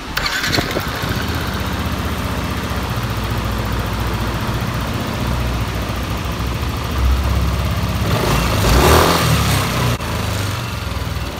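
2016 Yamaha NMAX scooter's single-cylinder engine starting and idling, its camshaft bearing freshly replaced, with a surge in engine noise about eight seconds in. It runs with a knocking, clunking noise that the owner still hears and suspects comes from the crankshaft bearings.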